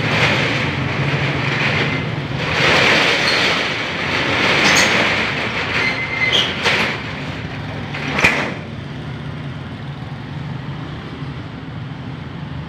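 Manually operated steel roll-up door rattling as it is pushed up and rolls into its housing, in uneven surges, with a sharp knock about eight seconds in; after that only a quieter steady background remains.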